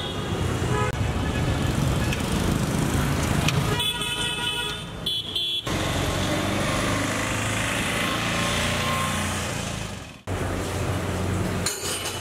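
Busy street traffic with cars running and horns tooting, one horn sounding a steady multi-tone blast about four seconds in. Near the end the sound cuts suddenly to a steady low hum.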